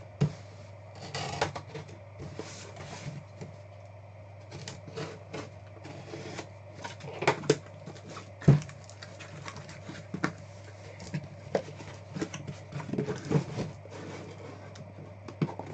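A cardboard shipping case of trading-card hobby boxes being opened and unpacked: scraping and rustling of cardboard flaps and tape, with irregular knocks as the case and boxes are moved and set down, the sharpest about eight and a half seconds in. A steady low hum sits underneath.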